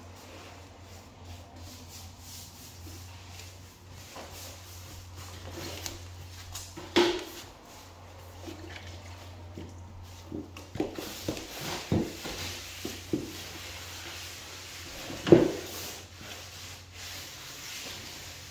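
Scattered knocks and bumps on bare pine floorboards as a person in knee pads moves about on the floor, with a rag rubbing over the boards in between. The two loudest knocks fall about a third of the way in and about three-quarters of the way in, with a run of smaller ones between them. A steady low hum sits underneath.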